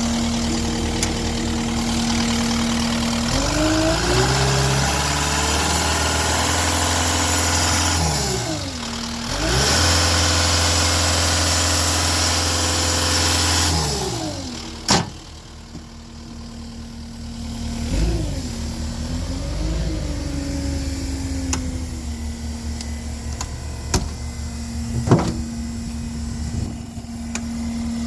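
Caterpillar 236D skid steer's diesel engine idling, then throttled up to high revs, dipping briefly and recovering before dropping back to idle, followed by two short blips of the throttle. A few sharp clicks or knocks are heard over the idle in the second half.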